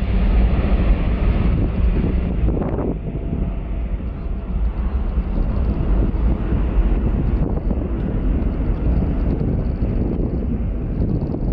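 Air New Zealand Boeing 787-9's Rolls-Royce Trent 1000 jet engines at take-off power: a steady low rumble as the airliner accelerates down the runway away from the microphone. Wind buffets the microphone throughout.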